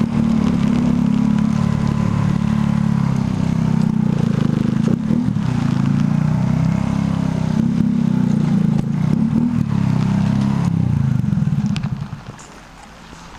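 Motorcycle engine running under way, recorded by a camera on the moving bike, with a few small clatters over it. About twelve seconds in the engine sound falls away sharply and stays low.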